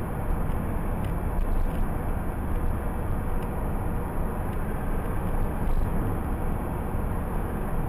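Steady road and engine noise of a car travelling at about 75 km/h, heard from inside the cabin through a dashcam's microphone, with a few faint clicks.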